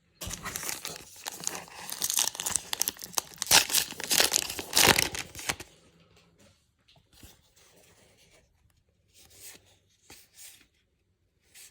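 Baseball card pack wrapper being torn open and crinkled for about five and a half seconds, then fainter, scattered rustles as the cards are handled.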